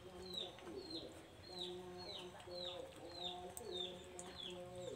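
A run of short, high-pitched peeping calls, each falling in pitch, about two to three a second, over a low steady hum that starts and stops.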